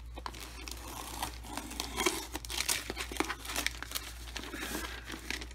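Glossy wrapping paper crinkling and tearing as a package is slit open with a craft knife and unwrapped: a steady run of irregular crackles and snaps.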